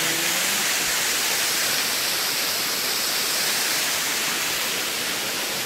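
Waterfall pouring over sloping rock slabs into a shallow pool: a steady, even rush of falling water.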